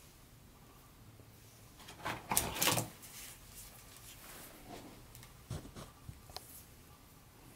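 Black plastic toy train track pieces being handled and pulled from a cardboard box: a burst of clattering and scraping about two seconds in, then a few lighter clicks.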